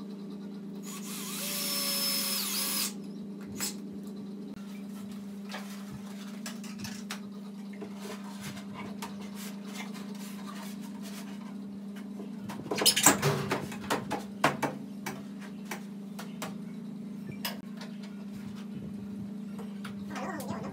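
Cordless drill running for about two seconds near the start, then a cluster of sharp knocks and clatter from a wooden cabinet being handled against the wall about halfway through, with scattered small clicks and a steady low hum throughout.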